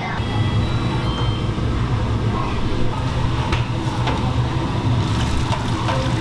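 Large stockpot of broth boiling hard on a commercial gas range, a steady rumbling bubble, with a few light clinks about halfway through and near the end.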